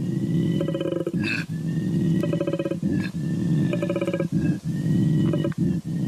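Koala bellowing: a series of deep, rasping, pulsing calls, each about a second long and separated by a short, sharp intake of breath, about four in all.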